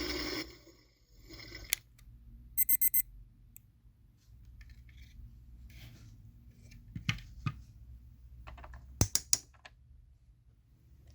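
AEG/Electrolux Lavamat 84950 washing machine winding down at the end of its programme: its running noise stops within the first half-second, then a quick run of about four short, high electronic beeps signals the programme has finished. Scattered sharp clicks and knocks follow.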